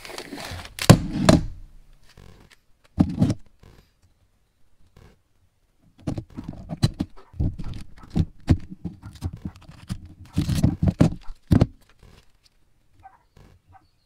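Carbon-fibre vinyl wrap being handled and cut with a utility knife on a wooden workbench. A few sharp knocks come in the first few seconds, then a busy run of handling noises and knocks from about six seconds in to near the end.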